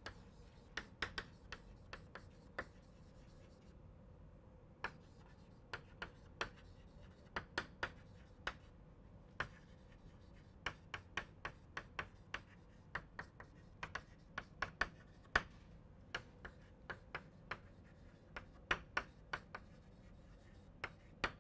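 Chalk writing on a blackboard: a string of irregular sharp taps and short scratches as words are written, with a brief pause a few seconds in and another near the end.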